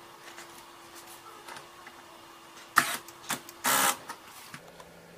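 Handheld 220 V industrial electric screwdriver running with a steady hum while its bit drives into a torque tester. A sharp click comes a little under three seconds in, then a smaller click and a short loud burst.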